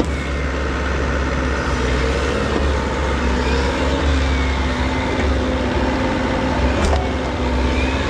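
Bobcat mini excavator's diesel engine running steadily under load while it works its hydraulics, with whines that rise and fall. One sharp click comes near the end.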